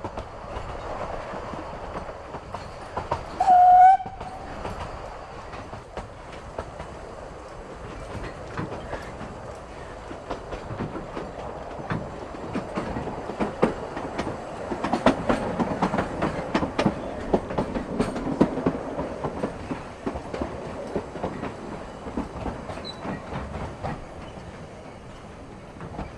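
Narrow-gauge steam train of the Vale of Rheidol Railway, hauled by the locomotive Llywelyn, running along with a steady rumble and repeated wheel clicks over rail joints. About four seconds in, a brief, loud whistle-like tone sounds once.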